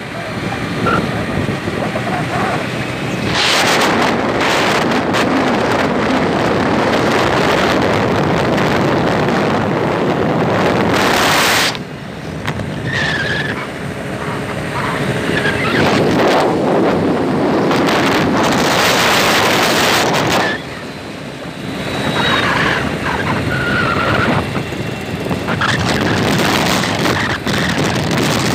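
Wind rushing over the microphone and road noise from a moving vehicle, with passing traffic. The rush swells into two long loud stretches, each cutting off suddenly.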